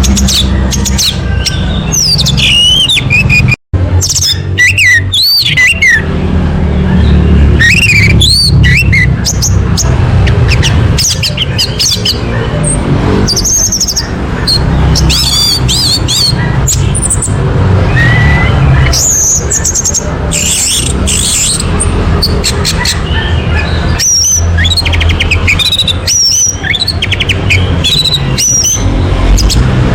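Orange-headed thrush song: a continuous run of varied whistled phrases, with quick rising and falling notes and trills, over a steady low hum. The sound cuts out for an instant about four seconds in.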